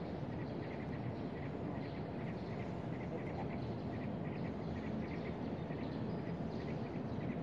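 Outdoor ambience: a steady low rumble with faint, short high chirps repeating about two to three times a second.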